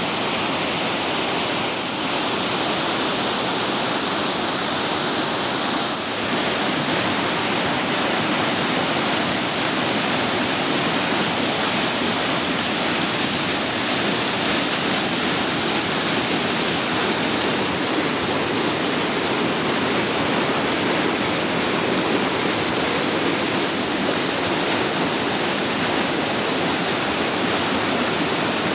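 Waterfall and whitewater rapids pouring over rock: a steady, loud rush of water.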